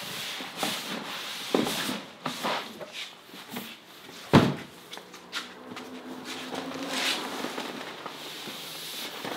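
A shipping box being opened by hand: rustling, scraping and clicks of the package being handled, with one sharp, loud knock about four and a half seconds in.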